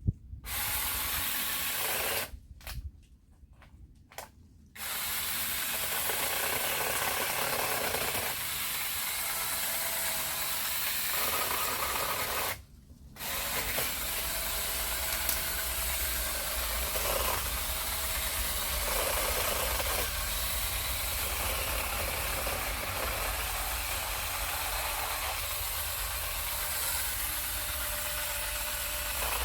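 Small 15 cm cordless electric chainsaw running in long steady stretches, stopping for a couple of seconds early on and briefly again about halfway through.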